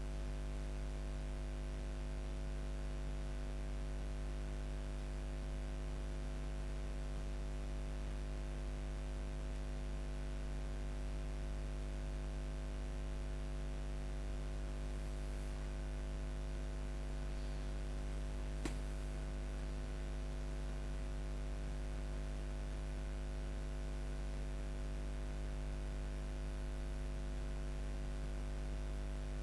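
Steady background hum with a low drone and several constant tones, and one short sharp click about two-thirds of the way through.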